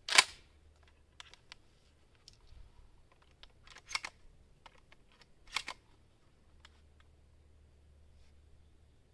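Girsan MC312 inertia-driven 12-gauge shotgun being loaded and handled: scattered sharp metallic clicks and clacks from the action and shells. The loudest comes about a quarter second in, and smaller clusters follow every second or so.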